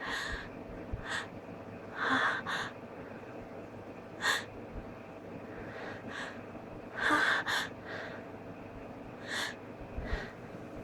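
A person's short, sharp gasping breaths, about ten of them at uneven intervals, some in quick pairs. These are the catching inhales of a sneeze that is building but stuck and will not come out.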